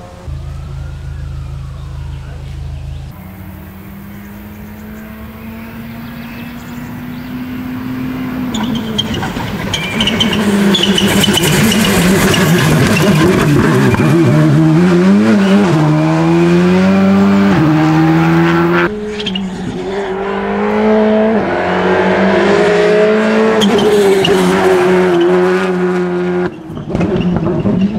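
Skoda Fabia RS Rally2 rally car's turbocharged four-cylinder engine at full throttle as the car comes closer and passes. The engine note climbs and drops sharply with each quick gear change. After a cut about two-thirds of the way through, the car is heard again accelerating hard and shifting up.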